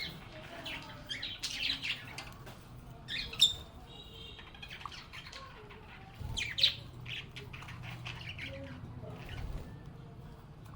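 A flock of lovebirds chirping and squawking in quick, short, high calls, with two sharp loud squawks about a third and two thirds of the way in and a brief whistled note between them. A low hum sits underneath through the second half.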